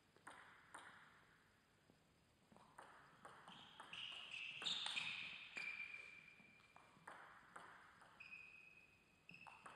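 Table tennis ball making scattered sharp clicks and taps, with a few short high squeaks in the middle, loudest about halfway through.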